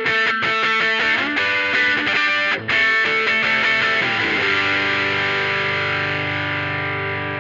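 Distorted electric guitar played through effects pedals: a run of quickly picked notes and chords, then about four seconds in a chord left to ring out and slowly fade.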